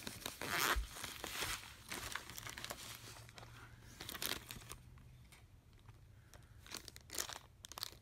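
Rustling and crinkling of packaging and paper as a clamp meter, its test leads and its manual are handled inside a soft carrying case, in irregular bursts, busiest in the first second and a half and again near the end.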